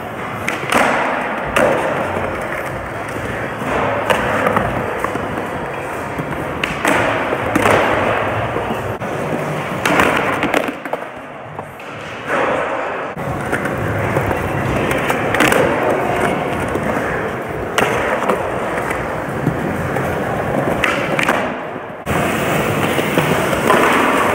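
Skateboard wheels rolling over a smooth skatepark floor, with sharp clacks of the board popping and landing now and then. The sound drops off abruptly about halfway through and again near the end.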